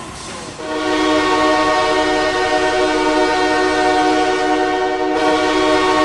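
Milwaukee Admirals goal horn: a loud multi-tone air horn sounding one steady chord. It starts about half a second in and breaks briefly about five seconds in before sounding again.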